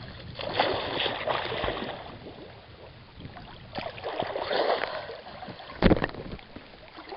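Water sloshing and splashing close to the camera in two rushes, with a sharp thump near the end.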